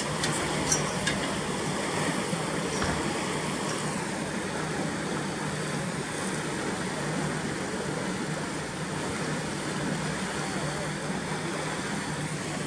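Water rushing and churning steadily as it pours through the sluices of a canal lock gate into the chamber, filling the lock.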